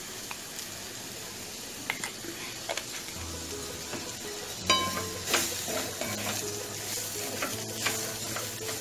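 Ivy gourd pieces frying in a metal kadai with a steady sizzle, then stirred with a wooden spatula. From about halfway through, the stirring adds repeated scrapes and knocks against the pan.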